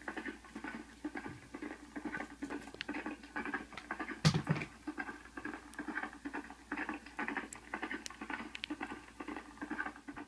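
Plush fleece blanket being rubbed and scratched close to the microphone: quick rustling strokes about three a second, with one louder thump about four seconds in.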